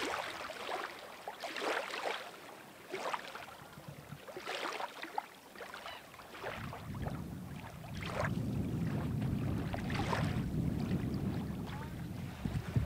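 Small waves lapping on a sand-and-pebble shore, a soft wash every second or so. About halfway through a steady low rumble comes in under them.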